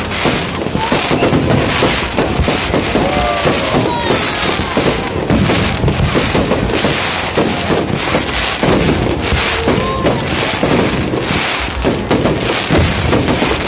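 Fireworks going off in a dense, continuous barrage of bangs and crackle, with no pauses between shots.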